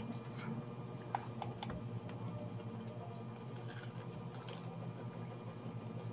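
Chewing crispy fried chicken: scattered small crunches and wet mouth clicks, over a steady low hum.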